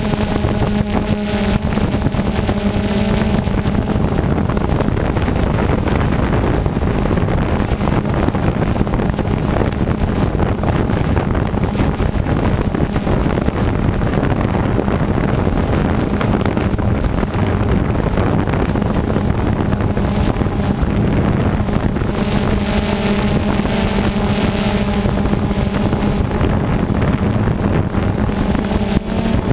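Multirotor drone's electric motors and propellers humming steadily, heard from the drone's own camera, with wind rushing over the microphone. The steady hum stands out most clearly in the first few seconds and again over the last several seconds.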